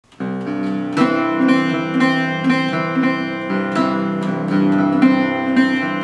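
A newly built mandocello, just set up and voiced, picked in a steady pattern of notes about twice a second, the paired strings ringing on into each other. It starts about a fifth of a second in.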